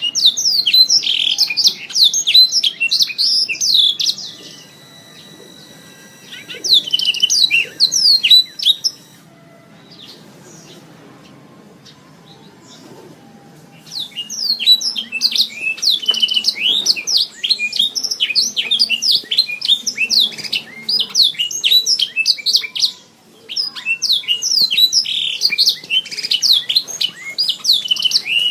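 Domestic canary singing long songs of fast, high chirps and rapid trills. Two shorter phrases are followed by a pause of about five seconds, then a long unbroken run of song.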